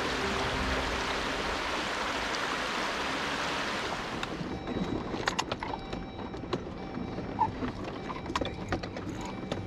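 Rushing stream water, a steady full hiss for about four seconds, then an abrupt change to a quieter background with scattered clicks and knocks.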